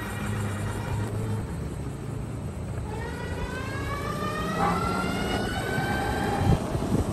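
NAVEE S65 electric kick scooter riding on pavement: the electric motor whines, rising steadily in pitch for about three seconds as it speeds up, over a constant rumble of tyres and wind. A short knock comes near the end.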